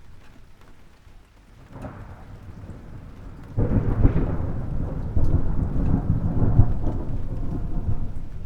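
Thunderstorm: thunder rumbles up about two seconds in, then breaks loudly and suddenly about three and a half seconds in and rolls on as a long low rumble that eases off near the end, with rain falling underneath.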